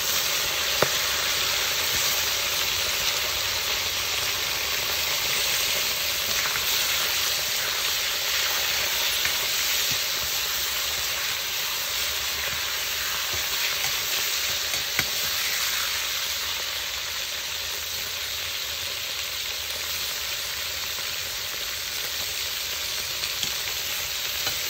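Raw beef chunks sizzling and frying in very hot oil in a cast-iron kazan: a steady, loud hiss, with a couple of sharp clicks about a second in and around the middle.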